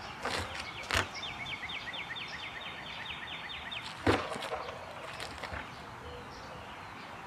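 Outdoor ambience with a small bird singing a fast trill of high, repeated notes, about five a second for a couple of seconds. A few sharp knocks sound over it, the loudest about a second in and about four seconds in.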